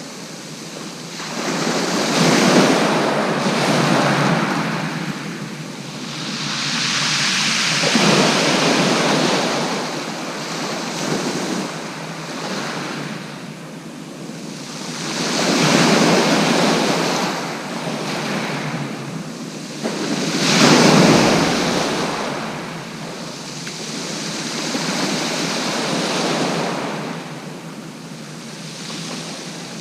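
Sea waves breaking on the beach, the surf swelling and fading in surges every five to eight seconds, the loudest break about two-thirds of the way through.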